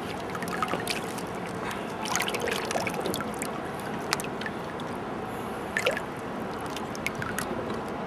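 Shallow, fast-flowing small river rushing steadily, with scattered splashes and drips ticking through the flow.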